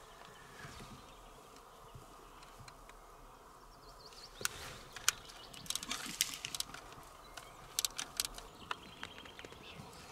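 Wild boar rooting through dry brush: a run of sharp twig snaps and crackles, starting about halfway and lasting some four seconds, over a faint outdoor background.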